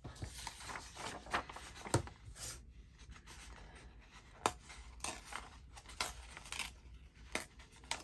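Printed paper pages being torn by hand in short, irregular rips, with rustling and small taps as the paper is handled.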